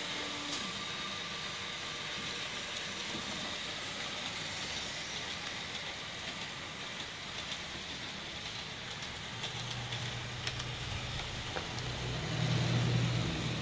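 Several Märklin model trains running on the layout: a steady whirr of small electric motors and wheels on the rails, with occasional light clicks. A lower hum comes in about two-thirds of the way through and grows loudest near the end, as a train runs close by.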